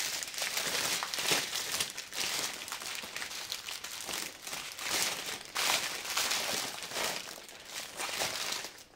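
Clear plastic bag and the small plastic sachets of diamond painting drills inside it crinkling and rustling as hands rummage through them, a continuous irregular crackle that eases off near the end.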